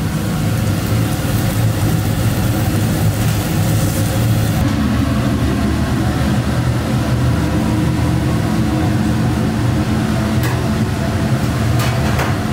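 Steady low drone of commercial kitchen ventilation, with a steak sizzling on the grill for the first few seconds until the hiss stops. A few sharp clicks come near the end.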